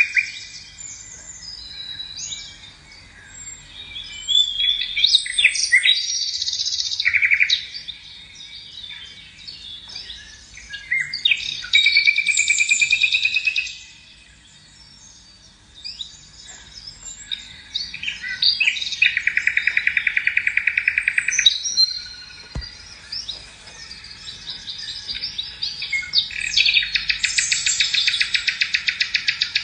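Songbird singing: a continuous run of varied high chirps and whistles, broken by several long, fast trills.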